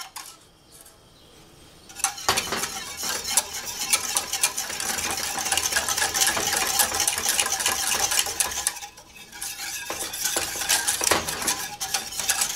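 Wire balloon whisk beating a hot milk, flour and sugar mixture in a stainless steel saucepan, its wires rattling and scraping quickly against the metal pot. The whisking stops briefly at the start and again about nine seconds in.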